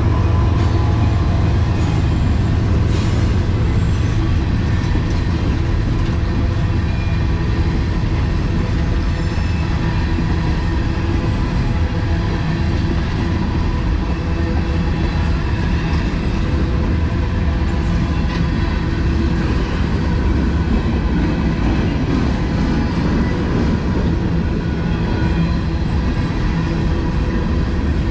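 CSX freight train rolling past, a steady rumble of its wheels on the rails.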